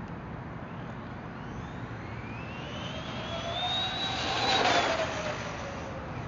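Traxxas Rustler VXL RC truck's Velineon 3500 brushless motor and gears, geared 21/83 on a 3S LiPo, whining at speed on pavement. The whine climbs in pitch and loudness for a couple of seconds, is loudest about three-quarters of the way in, then drops in pitch and fades.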